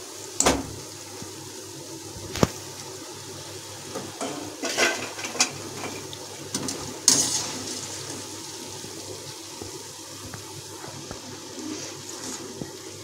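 Namak pare strips frying in hot oil in a steel kadai, the oil sizzling steadily. A slotted metal skimmer clinks and scrapes against the kadai and a steel plate several times as fried pieces are lifted out, the loudest knock about seven seconds in.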